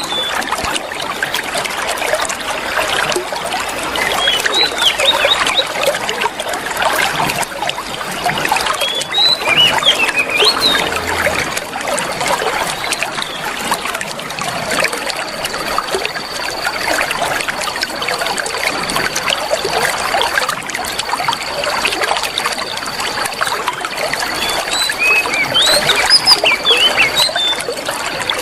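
Water trickling steadily, with a few quick bird chirps about a third of the way in and again near the end. In the second half a thin, high, steady whistle sounds four times, each lasting a few seconds.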